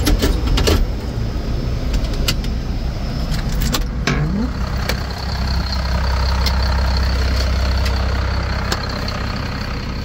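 John Deere 4255 tractor's six-cylinder diesel engine idling steadily, with a few sharp clicks and knocks in the first second and again near four seconds. The deep rumble grows stronger from about five seconds in, close beside the engine.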